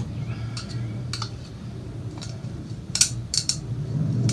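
A metal pick and gloved hands working on a plastic oil filter housing cap: a handful of sharp, separate clicks and taps, loudest in a quick cluster about three seconds in, over a low steady hum.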